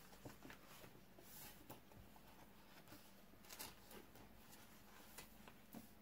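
Near silence, with faint scattered rustles and light ticks of a book's paper pages being handled and written in with a pen; the clearest rustle comes a little past the middle.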